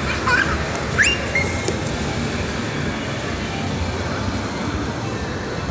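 Steady background din of a busy indoor playground, with a child's short high-pitched calls in the first two seconds, one rising sharply about a second in.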